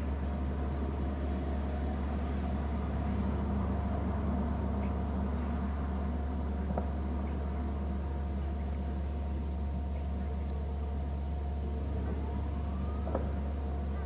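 A steady low drone with a few faint, short bird calls over it, one of them rising in pitch near the end.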